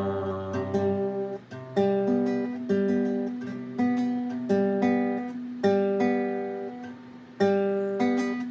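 Acoustic guitar playing a slow picked pattern, one note or chord struck about every half second and left to ring.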